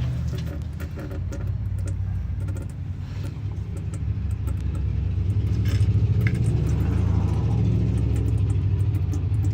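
A motor vehicle engine running steadily with a low rumble that grows louder about four seconds in, with a few small metallic clicks on top.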